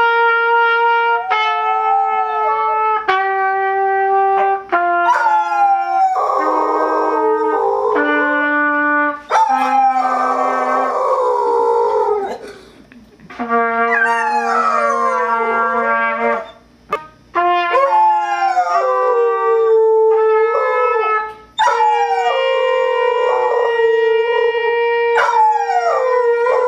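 Trumpet playing a descending C scale in held notes, stepping down one note at a time, while a golden doodle howls along. The dog's wavering howls slide over the trumpet notes from about five seconds in and continue over the later held notes.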